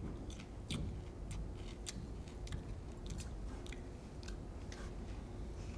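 People biting and chewing raw bitter herbs, green stalks crunching in short, irregular crackles.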